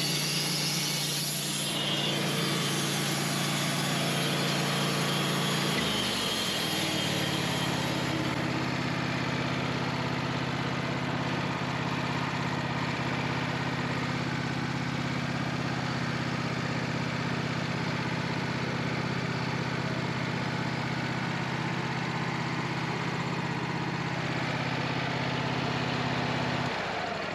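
Portable sawmill running steadily with its engine under way, making a cut through an oak log. The engine's pitch shifts about six seconds in, and the sound drops off right at the end.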